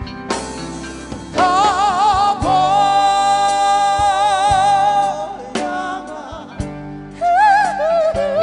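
Live band playing a Fijian-language song: a lead vocal sung with vibrato, holding one long note for about three seconds, over electric bass and electric guitar.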